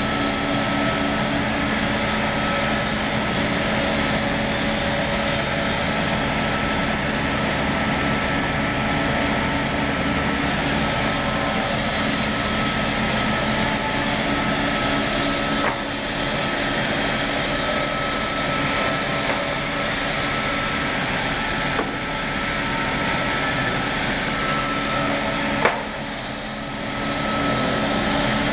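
Circular-saw woodworking machine running steadily, its motors humming while a log is fed past the spinning blade on a chain-driven carriage. A sharp click near the end, after which it is briefly a little quieter.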